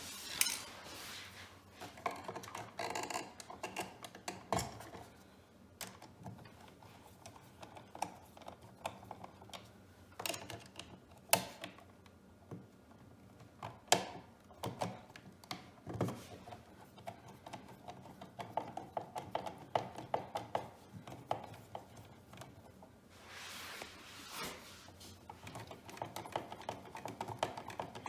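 Hands and tools working on a new electrical outlet and its wiring: a string of irregular small clicks, taps and knocks of metal and plastic, with a few sharper knocks.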